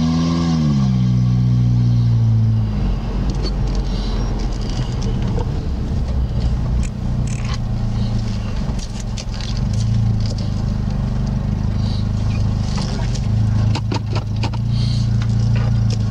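Car engine heard from inside the vehicle, its revs falling over the first two or three seconds and then running low and steady at a crawl, with scattered clicks and rattles.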